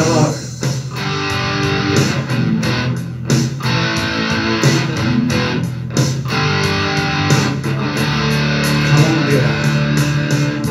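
Electric guitar playing over a rock backing track in an instrumental break. The music is loud and steady, with held notes and chords.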